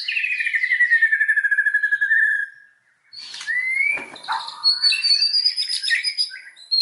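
White-rumped shama (murai batu) singing: a fast trill sliding down in pitch, a short pause just before halfway, then a varied phrase of rising notes, a high clear whistle and quick trills.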